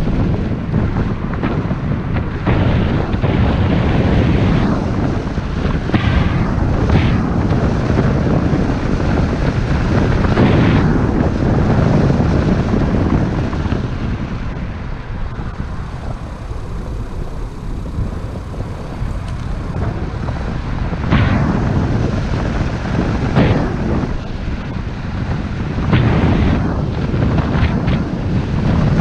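Wind buffeting the microphone of a camera mounted on a moving car, over the low rumble of the car on a rough asphalt road. The gusting eases for a few seconds about halfway through.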